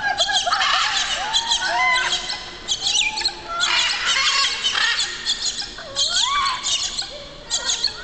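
Pet parrots, macaws among them, squawking: many loud, harsh calls in quick succession, some sliding up and down in pitch.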